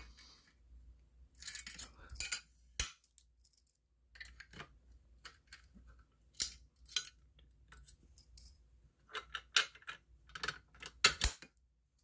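Simplex fire alarm pull station being handled and its handle pulled down: a scattered string of sharp metallic clicks and clacks, loudest about three seconds in and again near the end.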